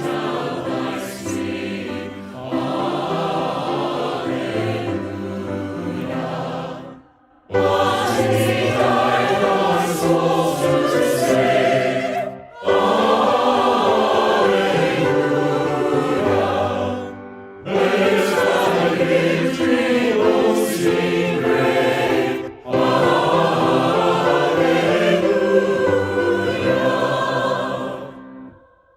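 Choir singing a hymn in phrases several seconds long, separated by short breaks, with one sudden near-silent gap about seven seconds in.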